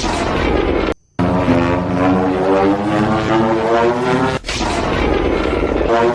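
Legendary Godzilla roar sound effect: long, droning pitched roars over a deep rumble, cut off by a sudden brief silence about a second in, then starting up again.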